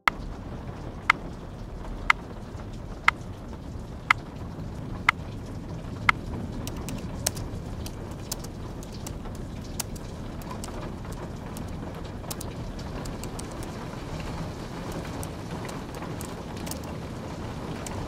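Steady rain hiss. Early on come six sharp ticks, one a second, like a countdown. After that there is light, irregular typing on a slim low-profile keyboard.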